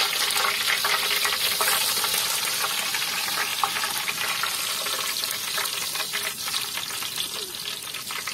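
Curry leaves sizzling in well-heated coconut oil in a wide metal pan, a steady hiss with many small crackling pops.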